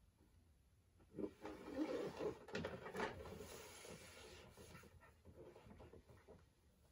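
Cardboard toy box being handled and turned over in the hands: faint scrapes, rubs and a few light taps, starting about a second in and tailing off toward the end.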